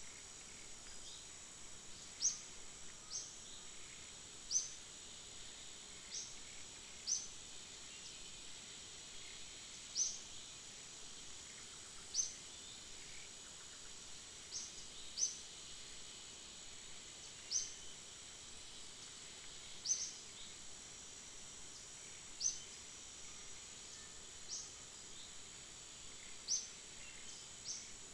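Forest ambience: a steady high insect drone, with a short, high, downward-sliding chirp repeated every couple of seconds.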